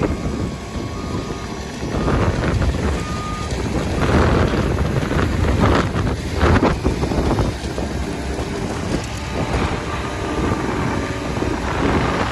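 Heavy vehicle engine running and working, surging louder a few times, with wind buffeting the microphone.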